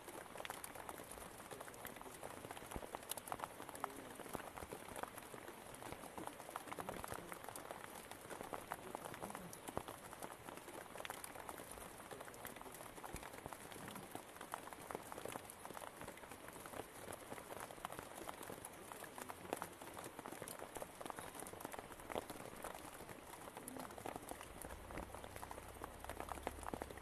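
Steady rain falling on forest foliage: a faint, dense patter of many small drops.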